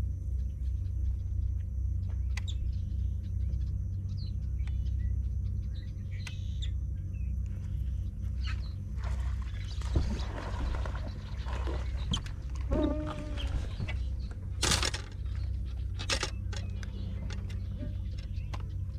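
Low, steady rumble throughout. From about nine seconds in come rustling and splashing as a hooked bass is pulled out of a matted vegetation patch, with two sharp knocks near the end.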